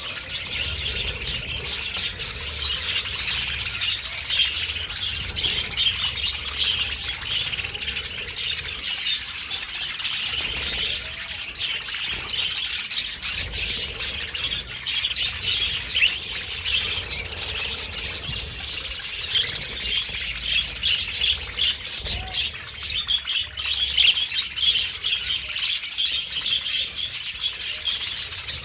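Budgerigars chirping and chattering without pause, a dense run of quick overlapping chirps.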